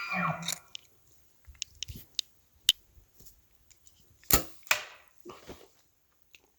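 The falling tail of a bull elk's bugle, then small clicks and a sharp crack. A bow is shot a little over four seconds in: a loud thwack of the string, then a second sharp hit about half a second later as the arrow strikes.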